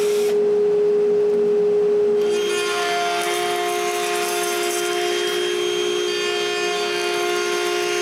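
Router table running with a steady high whine while a bearing-guided bit cuts a finger hole in a wooden pole held in a template jig. A rougher cutting noise joins the whine from about two seconds in.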